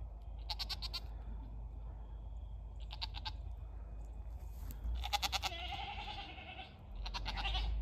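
Goats bleating from a pen: four short, wavering calls a couple of seconds apart. The third is the longest and trails off into a lower, smoother tone.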